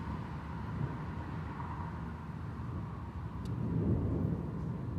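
Distant thunder rolling as a low, continuous rumble, swelling a little about four seconds in.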